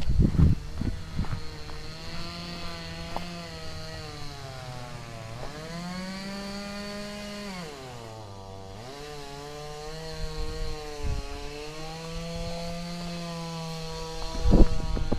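An engine running steadily, its pitch rising a little about six seconds in, dropping sharply around eight seconds, then climbing back and holding. Footsteps and gear knocks near the start and end.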